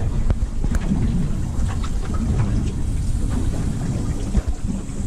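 Wind buffeting the camera's microphone on an open boat at sea: a steady low rumble, with a few faint light knocks.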